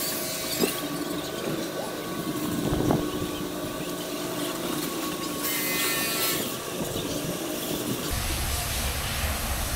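Twin Honda 350 hp outboard motors running at low revs as the 51-foot catamaran speedboat manoeuvres, a steady mechanical hum with several held tones. A brief high-pitched sound comes a little past halfway.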